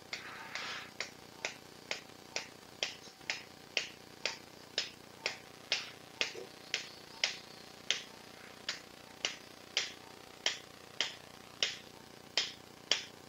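A mallet gently and evenly tapping a suture anchor into bone, about two sharp taps a second.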